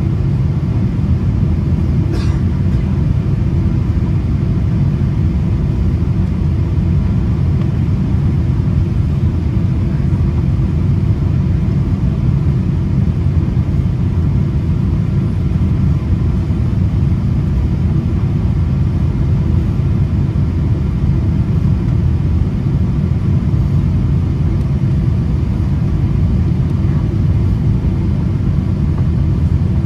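Steady low roar inside the cabin of a Boeing 787 on final approach, airflow and engine noise heard through the fuselage with the flaps extended for landing. A faint short click about two seconds in.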